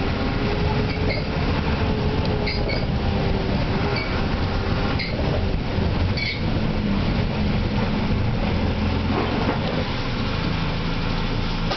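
Steady vehicle cabin noise as it drives along a rough, potholed road: engine running with low tyre and road rumble, and a few light rattles or knocks in the middle of the stretch.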